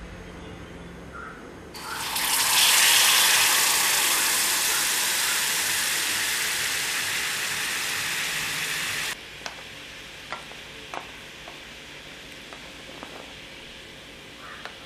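Water poured into a kadai to make jaggery syrup: a loud rushing noise starts suddenly about two seconds in, slowly fades, then cuts off abruptly. Afterwards a few light clinks of a spoon against the pan as the jaggery is scraped in.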